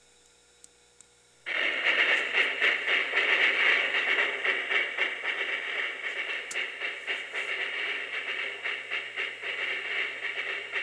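Soundtrack of an old TV program playing through a small FM radio's speaker, cutting in suddenly about a second and a half in, after near silence broken by two faint clicks.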